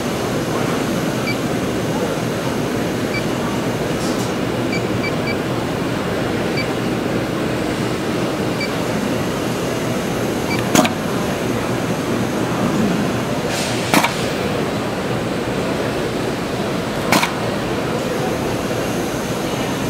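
A few faint short beeps while the touch screen is tapped, then sharp snaps about every three seconds from a pneumatic cutter head shearing strip blanks to length as the servo-driven dual-belt tractor feed cycles. A steady background noise runs underneath.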